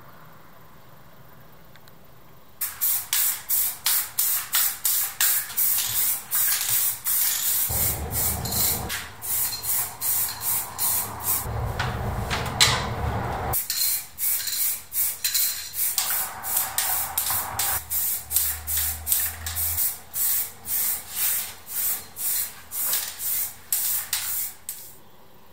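Aerosol spray paint being sprayed onto motorcycle fender and subframe parts. The hiss comes in rapid short bursts, about two a second, with a few longer passes. It starts about two and a half seconds in and stops shortly before the end.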